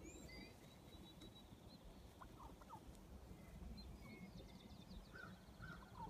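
Faint, scattered calls of wild turkeys, a few short notes at a time, with small birds chirping thinly higher up.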